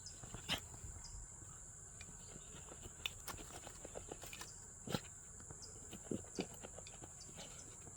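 A steady, high-pitched insect drone, with scattered faint clicks and a few soft knocks.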